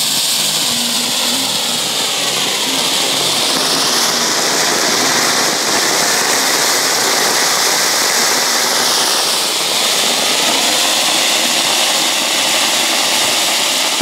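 Ground fountain firework (a 'Vulkan') burning and spraying sparks with a loud, steady hiss. A few seconds in, the hiss shifts higher in pitch and settles back down about two-thirds of the way through.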